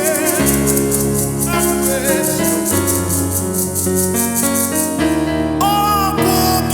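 Instrumental worship music: sustained keyboard chords and bass notes under a rapid, even shaker rhythm. The shaker stops about five seconds in and a gliding melody line comes in.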